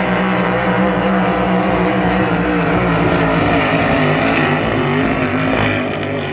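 Racing hydroplane engines running flat out as the boats pass at speed, a loud steady engine note that eases off slightly near the end.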